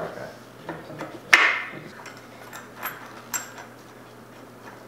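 Hand tools clinking against the metal of a bared engine head: one sharp clank a little over a second in, then a few lighter metallic taps with a brief ring.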